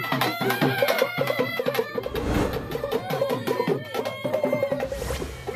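Closing theme music in a traditional folk style, with a fast, busy drum beat under a wavering melody line.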